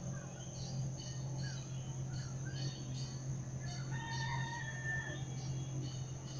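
A rooster crowing once, a single drawn-out call about four seconds in, over many short high bird chirps, a steady insect drone and a steady low hum.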